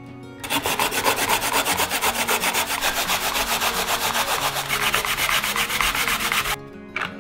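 Daikon radish being grated on a plastic grater: rapid back-and-forth rasping strokes, several a second. It starts about half a second in and stops abruptly near the end.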